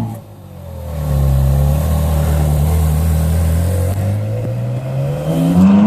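Ferrari 458 Italia's V8 engine at low revs as the car pulls away and drives off, running steadily. Near the end the engine note climbs as it accelerates.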